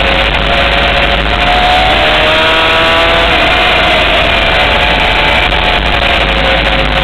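Honda CBR600 sport bike's inline-four engine running hard on a racetrack, its note dipping a couple of seconds in and climbing again, under loud wind rush on the onboard microphone.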